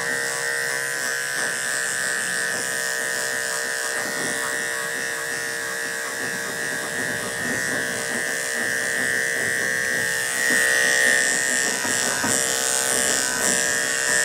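Corded electric dog clippers fitted with a #10 blade buzzing steadily as they shave under a dense mat at skin level in a dog's curly coat, the buzz growing a little louder about ten seconds in.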